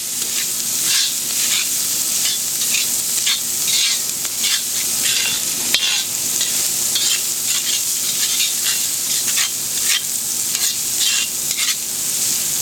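Garlic, ginger and onions sizzling steadily in butter and olive oil in a wok, with repeated short scrapes and knocks as they are stirred and tossed.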